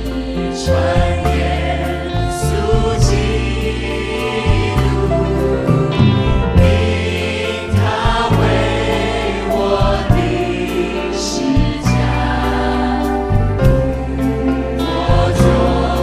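Chinese-language Christian worship song sung by a group of voices, with band accompaniment over a steady drum beat.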